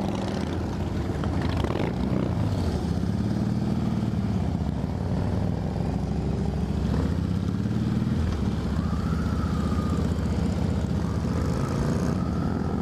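Harley-Davidson V-twin motorcycles pulling away as a group, engines rumbling, with the revs rising and falling several times as the bikes accelerate and shift.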